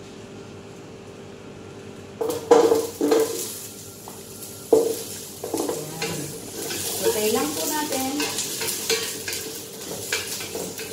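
Red onion sautéing in hot olive oil in a stainless steel pot: the sizzle starts about two seconds in as the onion hits the oil and keeps going. A wooden spoon stirs it, with a few knocks against the pot early on.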